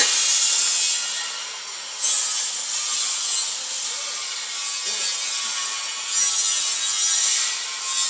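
Steady rasping hiss of metalworking in a workshop, like grinding. It jumps up sharply about two seconds in and swells again near the end.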